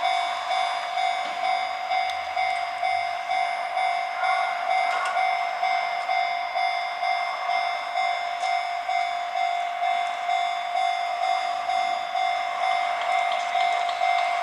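Japanese railway level-crossing warning alarm ringing, one steady bell-like tone pulsing in an even, unbroken rhythm.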